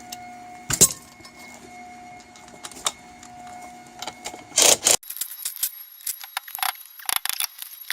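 Metal clinking and rattling of lug nuts and wrench tools being handled during a wheel change, a quick run of sharp clicks. Under it a steady hum, which cuts off abruptly about five seconds in.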